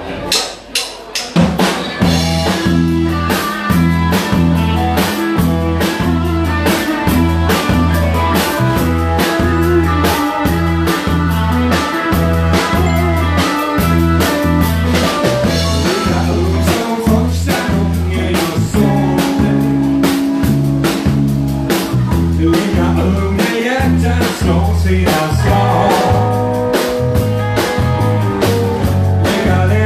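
Live band playing an up-tempo honky-tonk number on electric bass, drum kit and electric guitar. A few drum hits lead in, then the full band comes in about a second and a half in with a steady beat and a prominent bass line.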